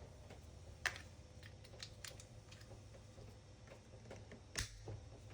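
Scattered small clicks and taps, with two sharper snaps about a second in and near the end, as the clamps holding the drain pump onto a direct-drive washer's motor are fitted.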